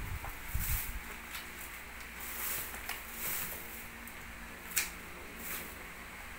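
Corn husks rustling and tearing as an ear of glutinous corn is stripped by hand, in soft swishes every second or so, with one sharp click just before the end.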